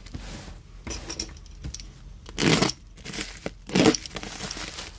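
Black plastic parcel wrapping being torn open by hand, crinkling and rustling, with two loud rips about two and a half and four seconds in.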